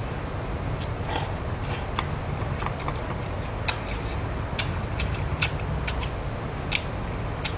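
A man chewing a mouthful of food close to the microphone: irregular wet mouth clicks and smacks, several a second, over a low steady rumble.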